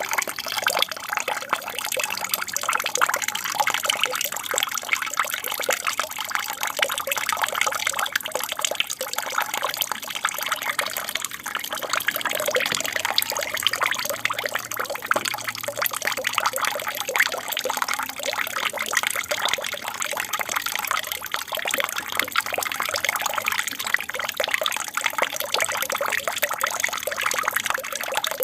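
Water from a small aquarium waterfall falling and splashing continuously into the tank, a steady trickling splash.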